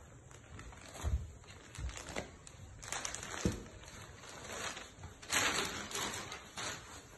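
Soft silk saree being unfolded and spread out by hand on a hard floor: scattered soft rustles of the silk with a few light knocks, and a longer rustle a little after five seconds in.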